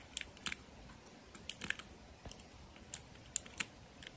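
Light, irregular clicks and ticks of hard plastic and metal, about nine of them, as a mechanical keyboard switch is worked loose from its desoldered PCB with a needle.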